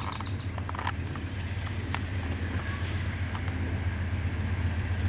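Low, steady rumble of an approaching diesel locomotive, growing slowly louder, with a few faint clicks.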